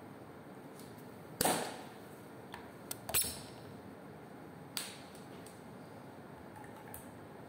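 A handful of sharp plastic clicks and knocks from a laboratory micropipette and plastic sample tubes being handled, the loudest about a second and a half in and just after three seconds, over a steady faint hiss.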